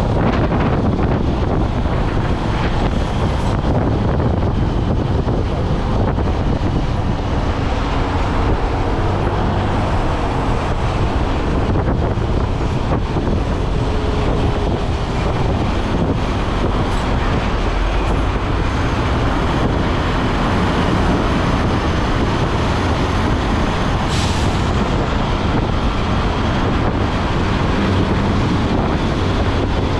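Steady engine and road noise of a moving vehicle, running evenly without a break.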